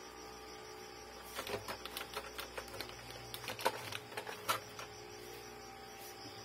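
A cloth rubbed and wiped over the plastic parts and ink tubes inside an opened inkjet printer, a run of scuffs and light clicks from about a second in until about four and a half seconds in, over a steady hum.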